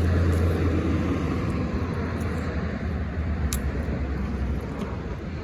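Engine of a passing motor vehicle: a low steady hum that fades and drops out about four and a half seconds in, over road noise.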